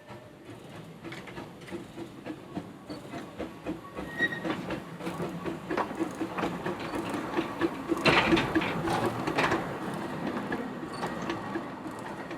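Small 19-inch gauge train running on the line, its wheels clicking over the rails. It grows louder to a peak about eight seconds in, as it draws close, then eases slightly.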